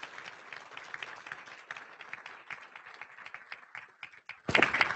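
Audience applause thinning out into scattered claps and fading away. A louder sound breaks in near the end.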